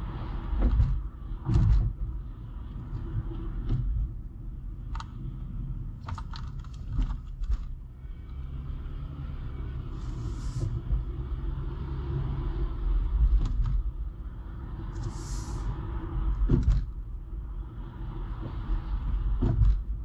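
Car driving on a paved highway: steady low tyre and engine rumble, with scattered sharp knocks and two brief hisses about ten and fifteen seconds in.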